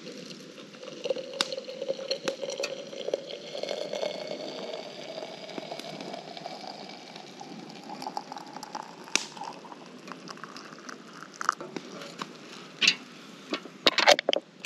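Water pouring from a metal kettle into a ceramic teapot, its tone rising steadily as the pot fills. Near the end come a few sharp clinks as the ceramic lid is set on the teapot.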